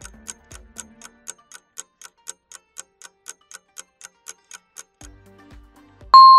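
Quiz countdown-timer sound effect ticking evenly at about four ticks a second over background music. Near the end the ticking has stopped and a single loud bell ding rings out and slowly fades, signalling that the time is up.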